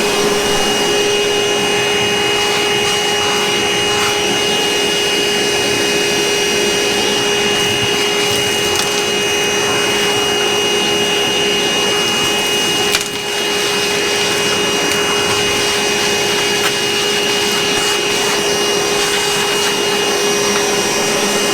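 Milwaukee M18 cordless shop vac running steadily, its motor giving a constant whine over the rush of suction, with one sharp knock partway through.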